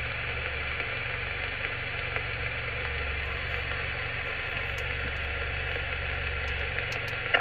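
Steady static and band hiss from the loudspeaker of a CRT SS 9900 11-metre CB radio on 27.510 MHz upper sideband, coming in the moment the transmit button is released while the channel is monitored for a reply, with a low steady hum underneath.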